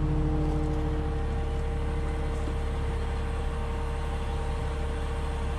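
Steady low mechanical hum with a few faint steady tones above it, running unchanged; one of the higher tones drops out about halfway through.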